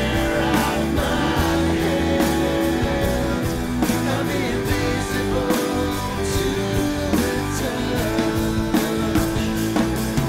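Rock music: a drum kit played hard with frequent cymbal and drum hits, together with sustained pitched instruments from a band or backing track.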